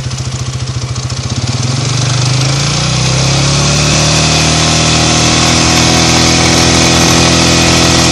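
Small off-road vehicle's engine idling with a fast pulsing beat, then revving up about a second and a half in and running steadily at higher revs as it moves off.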